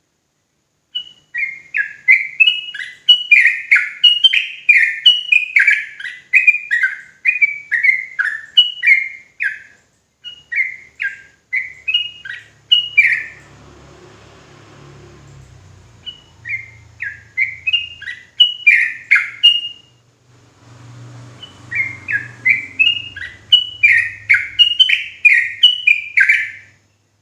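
Yellow-vented bulbul (trucukan) singing: fast runs of short, bubbly chattering notes, broken by two pauses of a few seconds, one about halfway through and one shortly after.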